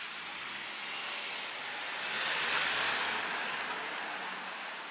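A vehicle passing by on a street: tyre and road noise that swells to a peak about halfway through and fades again, over a faint low engine hum.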